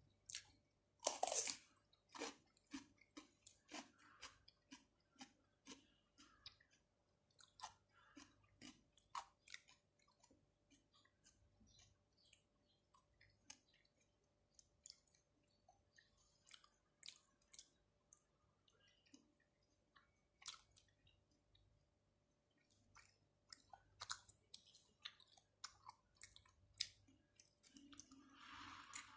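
Close-miked chewing of fresh raw shrimp and octopus, with sticky, wet mouth clicks coming several times a second. There is a louder bite about a second in and a short lull about two-thirds of the way through.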